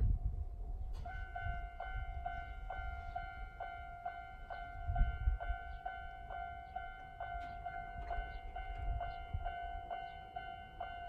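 Japanese railway level-crossing warning alarm of the old standard electronic type, starting about a second in and repeating a steady two-tone ding about two and a half times a second, over a low rumble.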